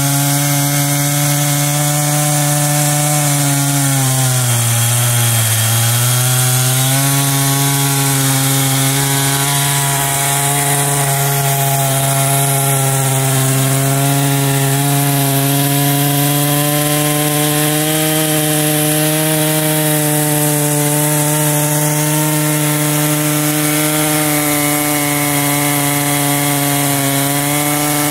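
Husqvarna 390XP two-stroke chainsaw running at full throttle while cutting lengthwise through a large log. Its engine note dips briefly about five seconds in as the chain loads down in the wood, then holds steady.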